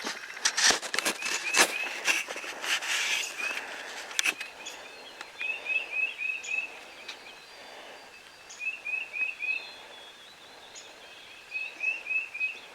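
A songbird repeating a short phrase of four or five quick chirps, about four times, over outdoor background noise. Sharp clicks and rustles of handling in the first few seconds.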